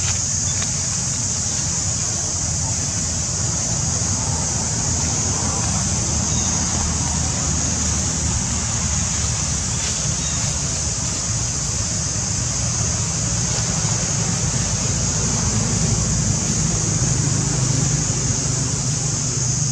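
Steady outdoor background noise: a constant high-pitched hiss over a low rumble, with no distinct events.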